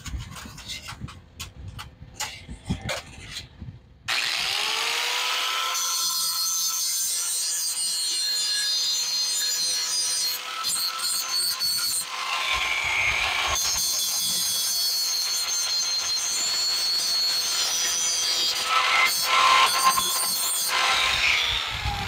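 Light clicks and taps of metal being handled, then about four seconds in a small high-speed rotary tool starts up. Its whine rises as it spins up, then holds steady while it grinds metal with a shifting hiss, running almost to the end.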